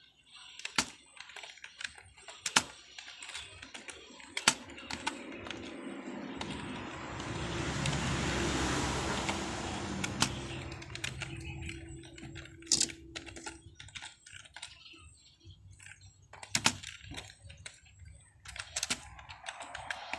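Computer keyboard being typed on, irregular key clicks with a few louder strokes. In the middle a broad rushing noise swells up and fades away again under the typing.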